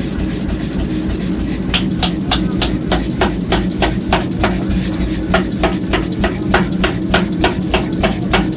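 Steady hammer strikes on iron being forged, about three to four blows a second, over the steady hum of a running machine.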